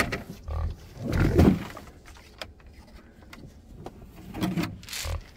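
Pigs grunting at close range: a few short, rough grunts, the loudest about a second in and another group near the end.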